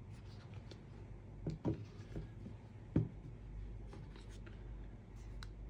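Handling noises from unboxing: a few soft knocks, two close together about a second and a half in and the loudest about three seconds in, with scattered small clicks and taps, over a low steady hum.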